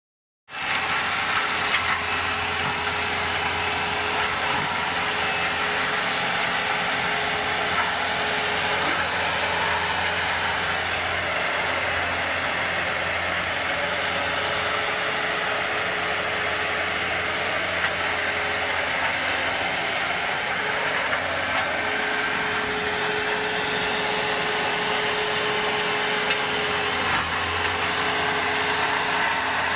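Antonio Carraro SRH 9800 tractor running under load and driving a mera PTO forestry mulcher, its rotor shredding brush and small trees into the soil. Steady, dense machine noise that starts abruptly about half a second in.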